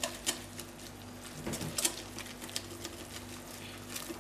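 Wire whisk beating a thick flour-and-yeast batter in a glass bowl, its wires ticking and scraping against the glass in an uneven run of clicks.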